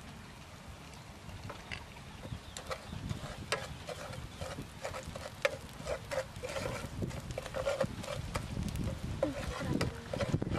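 Spatula scraping and tapping against a frying pan during stir-frying, in quick irregular strokes that come more often from about halfway through, over a low rumble.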